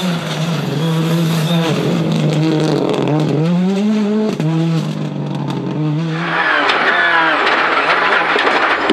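Rally car engine at full stage pace, its pitch repeatedly falling and climbing again with gear changes and lifts between corners. About six seconds in the sound turns louder and harsher.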